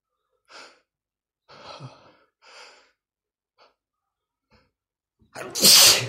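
A man's sneeze brought on by a tickle in the nose: a few short breathy sounds as it builds, then one loud sneeze about five seconds in.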